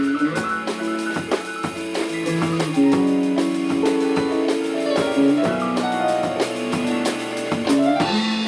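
A rock band playing: guitar, keyboard and bass hold melodic notes that change about every second, over a steady drum-kit beat.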